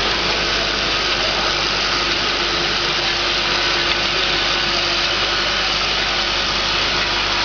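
A 10–20 ml vial filling and capping machine running: a steady mechanical hum and hiss from its drive and rotating bottle turntables, with a faint constant tone through it.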